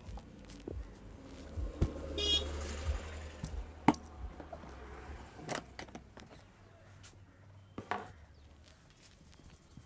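Street traffic: a motor vehicle passes with a low rumble and gives a brief horn toot about two seconds in. A few sharp clicks sound later on.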